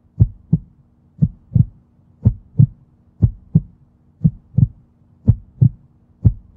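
Heartbeat sound effect: deep double thumps (lub-dub), about one pair a second, over a faint steady hum.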